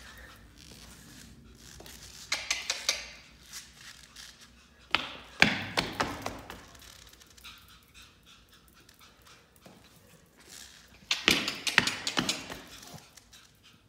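Soft thumps and taps of steps on carpeted stairs, in three short clusters a few seconds apart, as a Pomeranian and a person go down the staircase.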